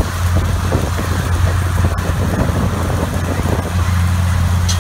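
John Deere 9400 four-wheel-drive tractor's Cummins N14 diesel engine droning steadily under load as it pulls a wide field harrow, with wind buffeting the microphone.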